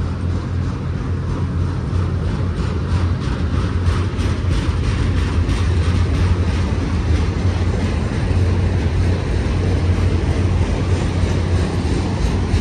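BNSF autorack freight cars rolling past: steel wheels clicking in a regular rhythm over a steady low rumble.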